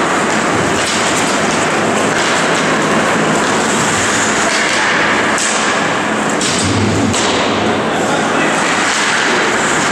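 Youth ice hockey game in an ice arena: a steady noisy din of play with indistinct voices, and a few sharp knocks about five to seven seconds in.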